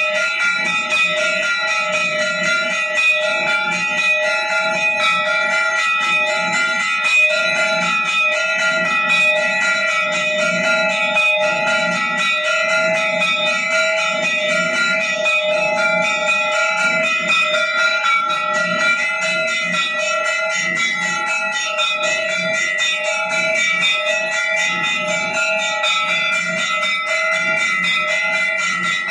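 Hindu temple bells ringing rapidly and without a break during aarti, a dense metallic clanging with sustained ringing tones and a steady beat underneath.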